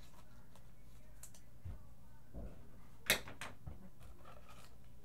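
Faint handling noises of trading cards being sorted on a table: small scattered clicks and rustles, with one sharp click a little after three seconds in.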